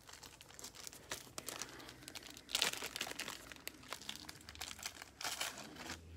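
Crinkling and rustling of thin plastic packaging as a pack of card sleeves is opened and handled, many small crackles with two louder bursts, about two and a half and five seconds in.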